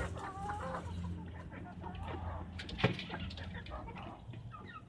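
Desi hens clucking softly in a flock: short scattered calls, with a single sharp click about three seconds in.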